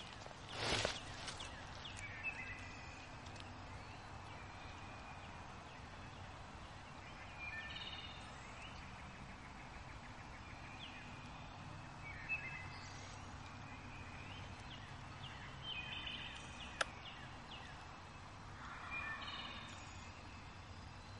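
Spring woodland ambience: songbirds chirping now and then over a steady low background, with a wild turkey gobble in the first second. A single sharp click comes about 17 seconds in.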